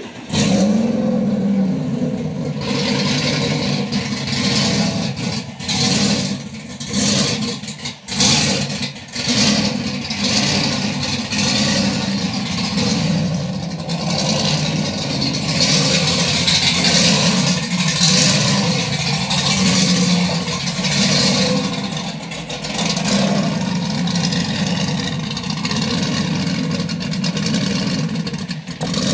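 ZL1 Camaro's supercharged V8 catching with a sudden start and a rising flare just after the beginning. It then runs continuously, engine speed rising and falling, with a few brief dips in the first third.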